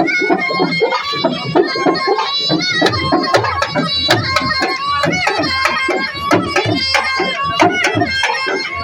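Indian traditional music with quick tabla drumming under a sustained melody line.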